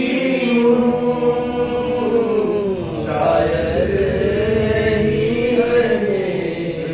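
A man chanting a nauha, a Shia lament for Imam Hussain, into a microphone: long held, wavering notes in two phrases with a short break about three seconds in.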